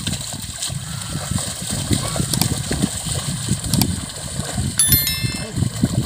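Bullocks' hooves and a wooden plough sloshing and squelching through flooded paddy mud, with a brief high ringing, like a small bell, about five seconds in.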